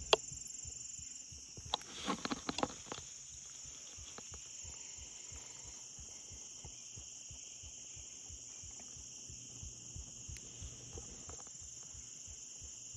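Steady chorus of insects in late-summer woods, a continuous high drone, with a short cluster of clicks and knocks about two seconds in and soft low thumps throughout.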